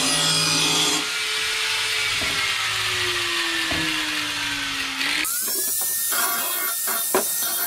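Hand-held angle grinder sharpening a steel mower blade. It grinds for about a second, then is lifted off and winds down with a slowly falling whine. About five seconds in it is switched on again and its whine climbs quickly to a steady high pitch.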